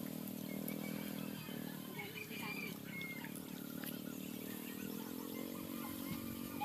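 A steady low hum, like a motor running, that steps slightly higher in pitch about five seconds in, with short bird chirps scattered over it.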